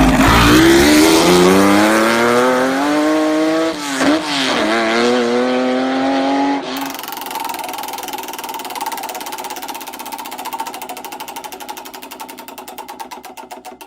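Lamborghini Miura's V12 engine accelerating hard, its pitch rising, dipping briefly at a gear change about four seconds in, then rising again. About seven seconds in it cuts to a steadier, quieter engine note with a regular pulsing that slowly fades.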